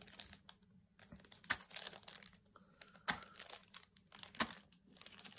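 Irregular light clicks and crinkling of plastic packaging being handled, with a dozen or so sharp ticks spread unevenly through it.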